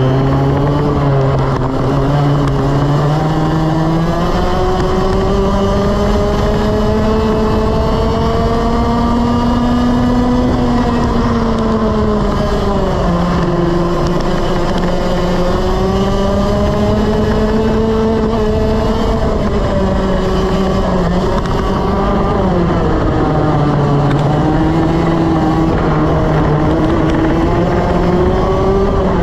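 125cc two-stroke TaG kart engine at racing speed, heard from on board. Its pitch climbs along the straights and drops sharply twice, about 12 and 21 seconds in, as the kart brakes for corners, then climbs again near the end.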